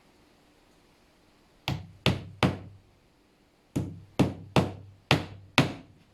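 Hammer tapping metal shelf-support pins into a wooden panel: three sharp knocks, a pause of about a second, then five more.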